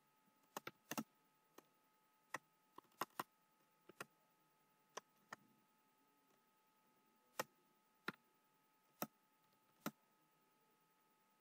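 Keystrokes on a computer keyboard, single clicks and quick pairs at irregular spacing, with pauses between, over near silence.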